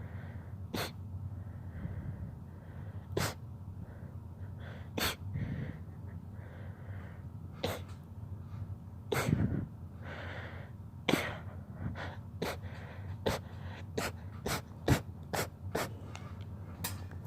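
A fit of rapid sneezes, more than a dozen short, sharp ones: a few seconds apart at first, then coming quickly, about one or two a second, from about halfway in, with gasping in-breaths between some of them.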